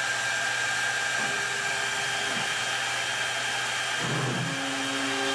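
CNC router spindle running at speed, a steady whine over a broad hiss. About four seconds in, a lower, wavering hum from the axis motors joins it as the V-bit starts to move down toward the plywood.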